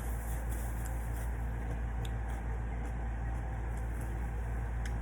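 Steady low hum with a couple of faint clicks, one about two seconds in and one near the end.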